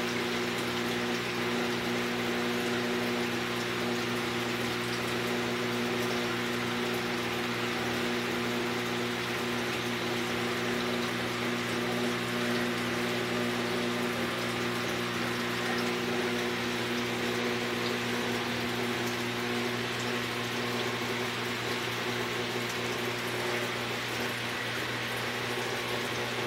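Saltwater aquarium pumps and circulating water running steadily: a constant low hum under an even rush of moving water.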